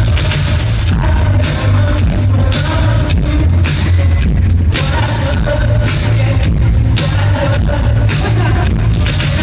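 Live pop and R&B concert music: a male singer singing into a microphone over a band with heavy bass, heard loud from the audience.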